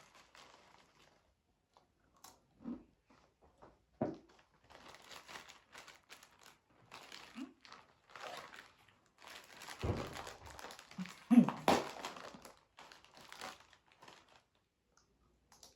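A plastic chip packet crinkling and rustling in irregular bursts as it is handled and opened, with some crunching of corn chips; the loudest crinkle comes about eleven and a half seconds in.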